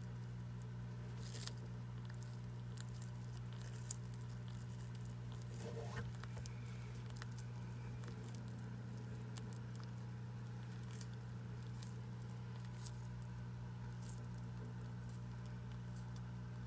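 Horsfield tortoise biting and chewing a leafy green: soft, irregular crunching clicks, with a few louder snaps, over a steady low hum.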